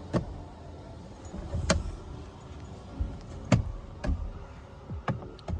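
A series of sharp clicks and knocks, about six spread over a few seconds, as the plastic steering-wheel trim cover is pressed and snapped back into place.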